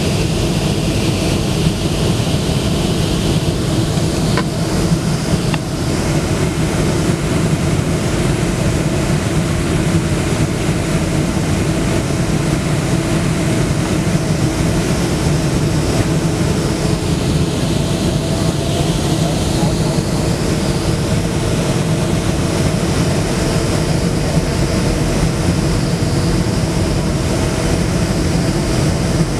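Steady cabin noise of a Boeing 757 on final approach and landing: jet engines and rushing airflow heard through the cabin wall, with a low hum and a few steady engine tones.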